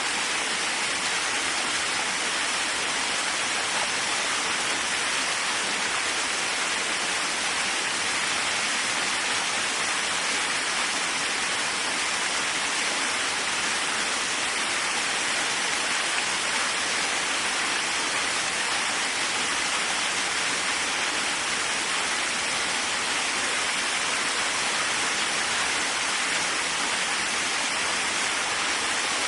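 Waterfall: a steady, even rush of falling water, hissing most in the upper range and weak in the bass.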